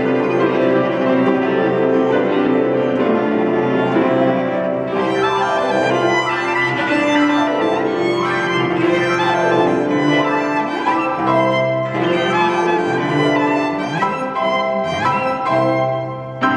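A live piano trio of violin, cello and piano playing together. Sustained bowed string notes carry the opening, and the texture turns busier and brighter about five seconds in, with quick notes added above the held strings.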